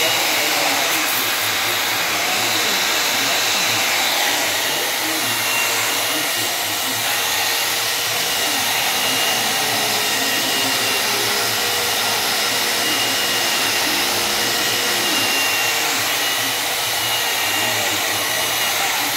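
Electric angle grinder with a diamond polishing pad running steadily, a continuous motor whine and rush, as it polishes the edge of a granite slab.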